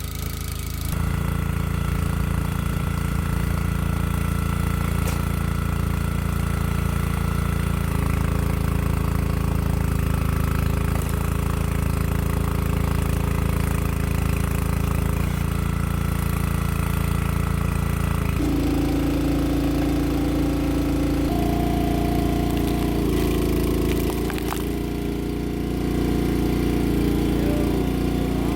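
Gas engine of a hydraulic log splitter running steadily, its note changing a few times.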